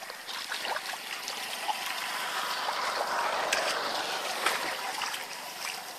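Muddy shallow water splashing and trickling as it is scooped and poured with a plastic bucket, swelling to its loudest about halfway through, with scattered small splats.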